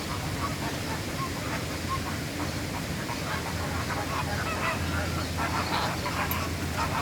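Scarlet macaws squawking: a series of short, harsh calls that come thicker from about halfway through, over a steady low hum.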